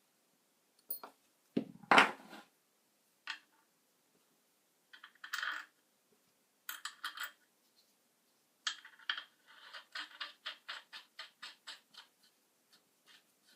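Light clicks and clinks of small hard parts being handled, with a louder knock about two seconds in and a quick run of about four clicks a second from about nine seconds in that thins out toward the end.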